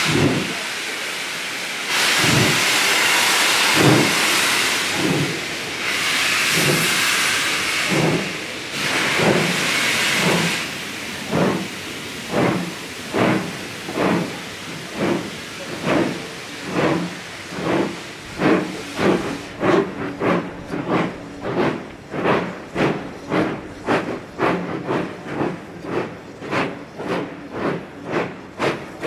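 Two steam locomotives double-heading a train as they pull away: steam hisses loudly for about the first ten seconds, then the exhaust beats come through clearly and quicken steadily, from about one a second to two or three a second as the train picks up speed.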